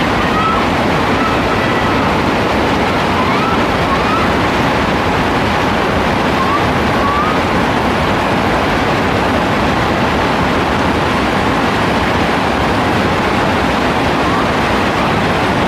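Heavy rain pouring down in a steady, dense hiss, with a few faint short rising chirps heard over it now and then.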